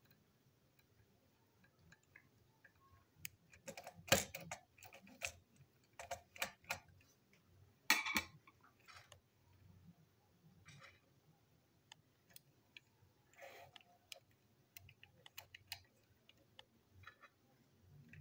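Faint scattered clicks and taps of small plastic parts, screws and a screwdriver being handled while a Plarail toy train chassis is reassembled, with the loudest clusters of clicks about four and eight seconds in.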